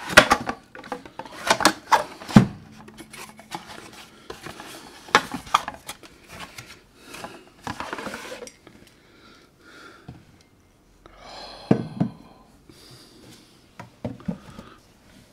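Cardboard whisky gift box being opened and handled: flaps and sides rubbing and scraping, with scattered clicks and knocks as it is lifted and tipped. A louder knock comes about two and a half seconds in, and another near twelve seconds.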